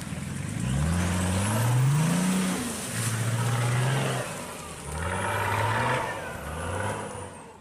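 A motor-vehicle engine revving several times, its pitch climbing on each rev, holding steady for about a second midway, then climbing again before fading out near the end.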